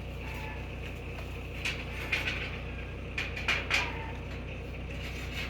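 A handful of short clicks and knocks, bunched in the middle, over a steady low hum.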